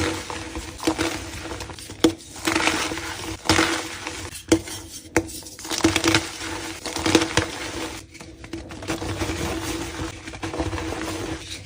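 Gym chalk being crushed and crumbled: an irregular run of crisp crunches and crackles with sharp clicks.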